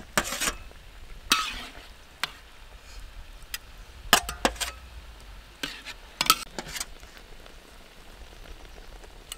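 A metal ladle scraping and clinking against a wok and a metal tray as pieces of braised chicken are lifted out, in scattered short strokes: a scrape about a second in, and clusters of clinks around four and six seconds in.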